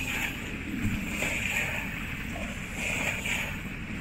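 Low, steady rumble of a distant SpaceX rocket climbing after launch, rough and crackly, with a higher hiss that swells twice.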